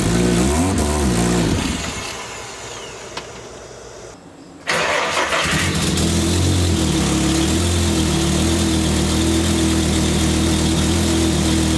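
Five-cylinder engine (VW 07K inline-five swapped into a Porsche 944) revving unevenly, then dying away, then firing up abruptly about five seconds in and settling into a steady idle.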